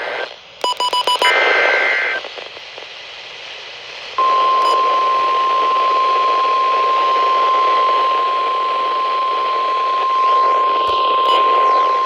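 Emergency Alert System weather warning received over a hissing radio. A few short electronic beeps and the end of a two-tone digital data burst come first. About four seconds in, the single steady NOAA Weather Radio warning alarm tone starts and holds.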